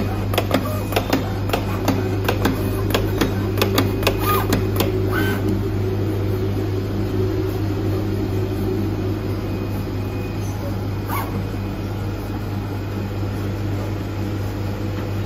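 IECHO PK0705 Plus flatbed cutting plotter at work on card: the tool head clicks rapidly over the first five seconds or so while its drive motors whine, then moves on more quietly, with only a few clicks over a constant low hum.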